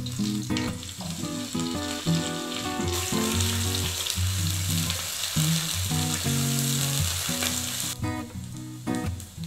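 Sliced onion sizzling as it fries in hot oil in a nonstick frying pan while being stirred. The sizzle swells about three seconds in and drops back near the end. Acoustic guitar music plays underneath.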